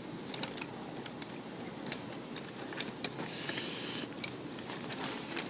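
Small metal tools clicking and rattling against each other as a screwdriver kit is rummaged through, with a short stretch of rustling about three seconds in.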